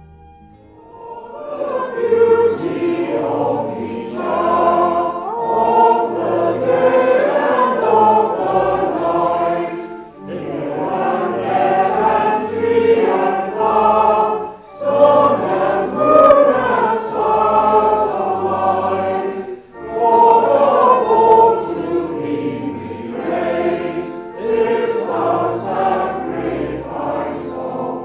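A choir singing, in long phrases with brief breaks between them.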